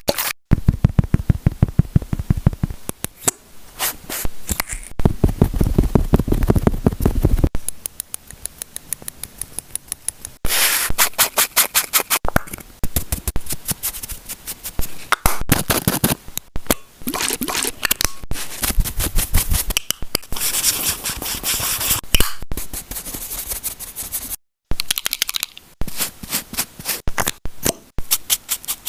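Pencil scribbling on paper: runs of quick back-and-forth scratching strokes, several a second, with a few short breaks.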